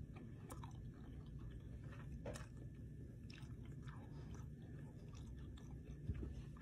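Person chewing a mouthful of sausage with the mouth mostly closed: soft, wet mouth clicks and smacks at irregular intervals over steady low background noise.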